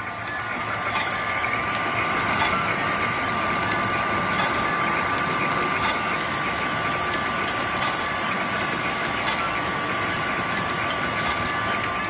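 Automatic wire cutting and stripping machine running, with a steady whine and a quick series of sharp ticks as its rollers feed the cable and its blades cut and strip it into short lengths.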